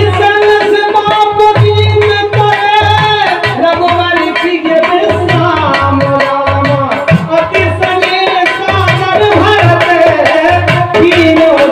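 Live Indian folk devotional music: a harmonium holding a sustained melody over a hand drum played in a steady, quick rhythm, with sharp percussive strokes throughout.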